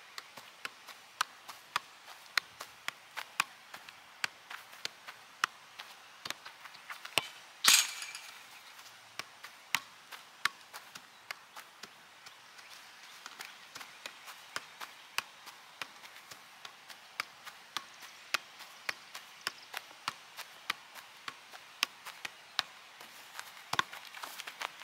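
Soccer ball being juggled on the feet: a steady run of light taps, about two a second, with one louder, sharper hit about eight seconds in.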